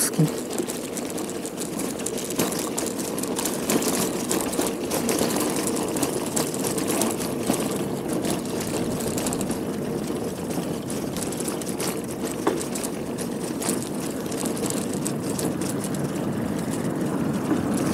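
Steady whirring of a bicycle being ridden, tyres and drivetrain running, with scattered faint clicks.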